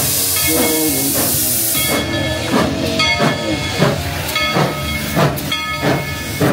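Narrow-gauge steam locomotive venting steam with a loud hiss, which stops about two seconds in and gives way to a steady repeating beat about twice a second.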